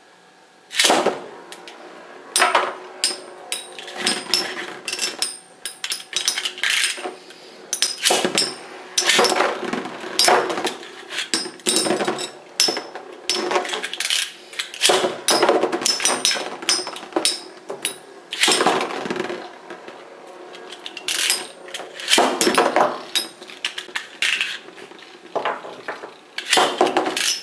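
Metal Beyblade spinning tops battling in a plastic stadium: sharp metallic clacks as they strike each other and the walls, at irregular intervals and sometimes in quick runs, over the steady whir of the tops spinning.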